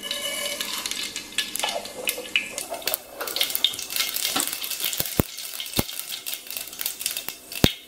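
Mustard seeds poured into hot oil, sizzling and crackling, with a few sharp pops in the second half as the seeds splutter.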